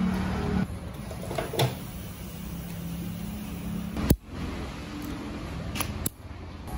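Pointed steel pick clicking against the piston-pin circlip of an Isuzu 4HK1 diesel piston as it is worked in the pin boss: a few sharp metallic clicks, the loudest about four seconds in, over a steady low hum.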